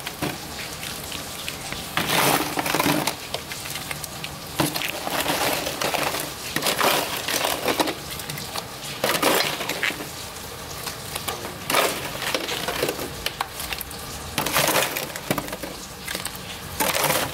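Boiled crawfish shells being cracked and peeled by hand, giving irregular crackling, crunching bursts every second or two.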